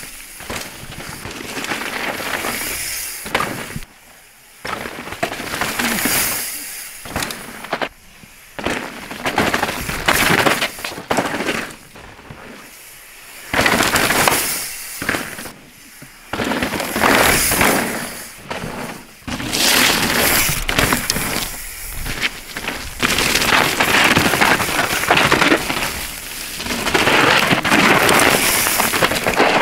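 Mountain bike tyres skidding and roosting through loose dirt and leaves on fast trail descents: bursts of spraying, crunching dirt noise with knocks from the bike, in a run of separate passes that cut off and start again suddenly several times.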